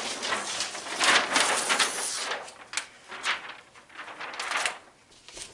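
A large sheet of paper rustling and crinkling as it is handled and put up flat on a whiteboard, dense for the first two seconds, then a few softer separate rustles.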